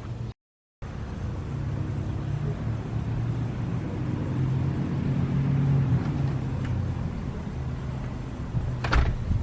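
A low, steady mechanical hum that swells toward the middle and eases off again, with a sharp knock near the end. The sound cuts out completely for half a second just after the start.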